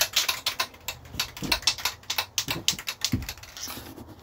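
Aerosol spray paint can being shaken by hand, its mixing ball rattling in quick sharp clacks, about five a second.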